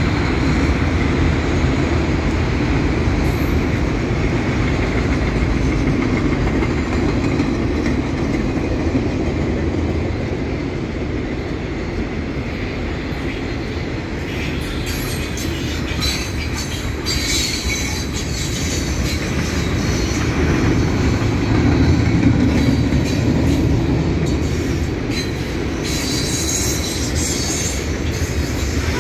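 A long freight train's cars rolling past: a steady low rumble of steel wheels on rail, with sharp high wheel squeals and clicks about halfway through and again near the end.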